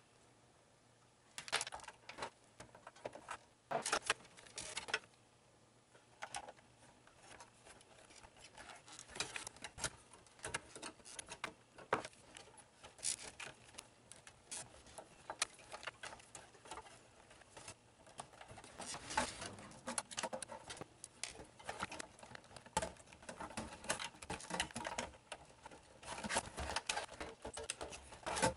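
A rapid, sped-up patter of small clicks, taps and rattles from hands working inside a Sun Ultra 5 computer's metal case, handling the drive cage, cables and a hard drive. It comes in busy spells separated by quieter stretches.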